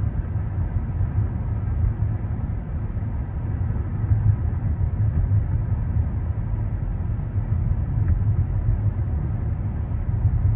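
Steady low rumble of a car driving, heard from inside the cabin: engine and tyre-on-road noise with no breaks.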